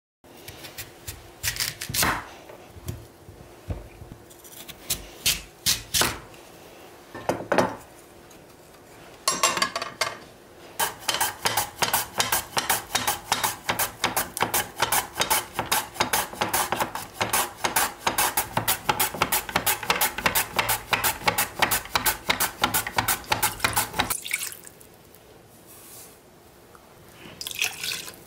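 Radish being sliced on a mandoline slicer: a few separate clacks at first, then a long run of rapid, even slicing strokes, about four a second, that stops a few seconds before the end. Near the end, a short pour into a saucepan.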